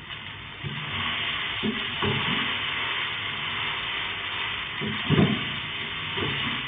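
Food frying in hot oil in a large pot, a steady sizzling hiss that swells a little under a second in, with a few low thumps, the loudest about five seconds in.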